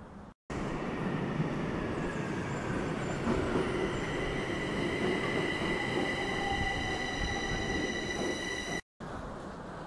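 Metro train coming into the station and slowing, a loud rumble with a steady high-pitched whine over it and a lower tone falling away near the end. It starts abruptly about half a second in and cuts off just before the end.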